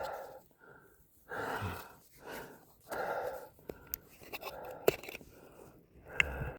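A hiker breathing hard, out of breath after a steep climb, drawing a loud breath about every second and a half. A few sharp clicks come in the second half.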